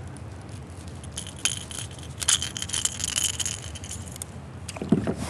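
Rapid metallic clinking and jingling of a topwater lure's treble hooks and fishing pliers as a hooked smallmouth bass is unhooked.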